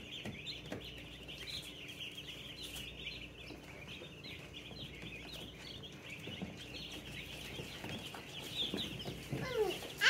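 A brooder full of baby meat chicks and turkey poults peeping: a continuous chorus of many overlapping short, high peeps.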